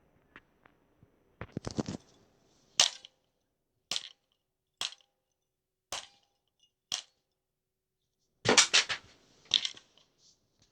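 A series of sharp, hard knocks: a quick flurry, then five single knocks about a second apart, then another rapid flurry near the end.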